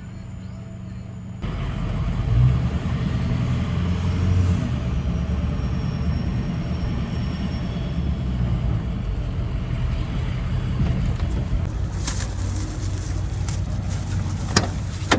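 Vehicle engine and road noise heard from inside the cab while driving, a steady low rumble that cuts in about a second in. A few sharp clicks come near the end.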